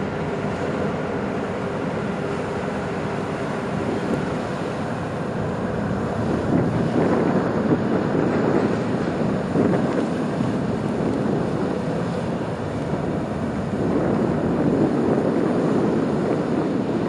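Wind buffeting the microphone over the low running of a car ferry's engines and water washing. The wind swells louder about six seconds in and again near the end.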